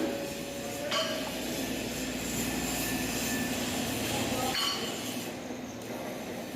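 Steel fabrication work: a steady hissing noise with a faint low hum, and a couple of short metallic clinks about a second in and near the middle.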